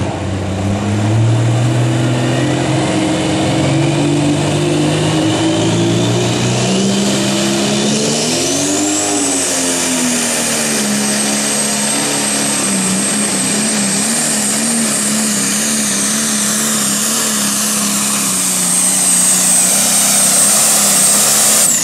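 John Deere pro stock pulling tractor's turbocharged diesel engine running at full throttle under the load of the sled: its note climbs over the first seconds, then holds steady. A high turbocharger whine rises with it and levels off into a steady high whistle from about eight seconds, then drops away at the end.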